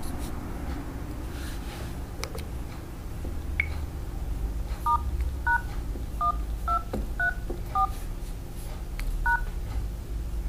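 Samsung Wave S8500 touchscreen dialer playing seven short DTMF key tones, one per key, as *#1234# is entered: the service code that calls up the phone's software version. The tones come in a quick run of six, then a last one after a short pause. A single higher beep comes about three and a half seconds in, over a steady low hum.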